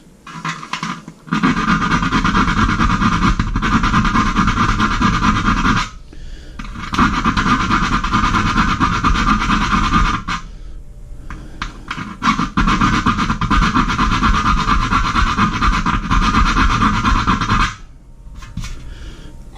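An electric drill running in three long bursts of a few seconds each, its bit grinding through the enamelled steel of a Weber kettle grill lid to enlarge a hole, with small clicks near the end.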